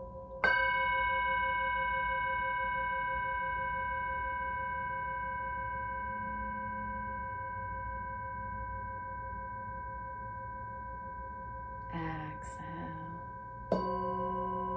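Brass singing bowl struck once with a padded mallet about half a second in, ringing with several steady overtones and a wavering beat that fade slowly. It is struck again near the end, bringing in lower tones.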